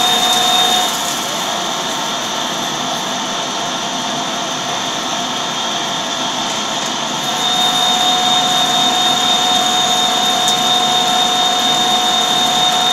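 Large metal lathe turning a steel workpiece with the cutting tool in the cut: steady machining noise with a high whine that drops out about a second in and comes back about seven and a half seconds in.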